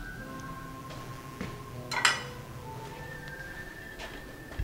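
Dishes clinking as a serving bowl is handled. One sharp, ringing clink about two seconds in, with a few fainter knocks around it.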